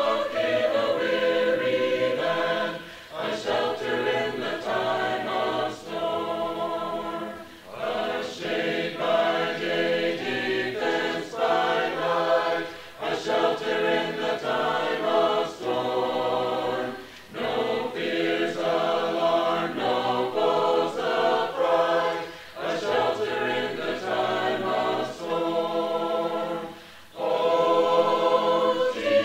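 A choir singing a hymn a cappella, line by line, with a short breath between phrases every four or five seconds.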